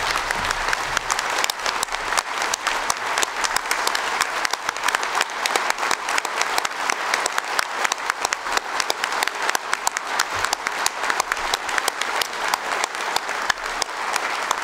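A large audience applauding, many hands clapping steadily and densely without a break.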